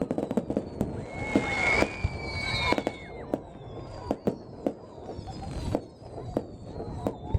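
Fireworks display: repeated sharp bangs of bursting shells, with high whistles falling slowly in pitch and one steadier whistle from about a second in until nearly three seconds.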